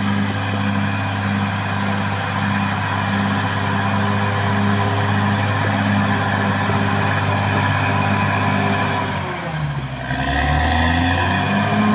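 Caterpillar D6R XL bulldozer's diesel engine running steadily at working revs. About nine and a half seconds in, the engine note drops briefly, then comes back up.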